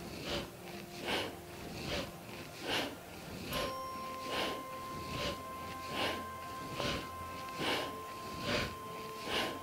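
Strong, even breaths through the nose, a little more than one a second, keeping time with a seated spinal flex in a Kundalini yoga exercise. Soft background music with steady held tones runs underneath.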